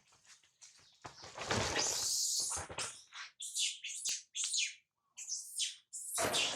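A loud rush of scuffling noise about a second and a half in, then a rapid string of short, high-pitched squealing calls: a baby monkey screaming in distress.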